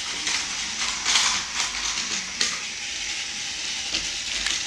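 Crackly rustling and a few sharp plastic clicks as a toy train and its plastic track pieces are handled on a tile floor.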